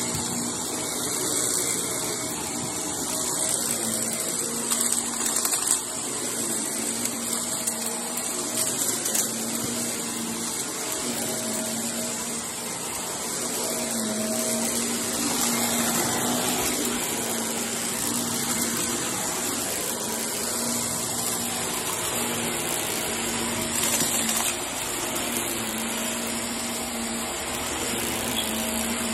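Upright vacuum cleaner running steadily as it is pushed over carpet, a continuous motor drone with a steady high whine.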